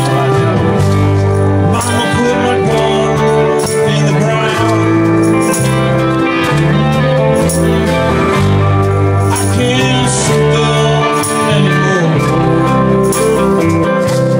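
Live band playing amplified music: electric guitars over a bass guitar line that moves from note to note, with a steady beat.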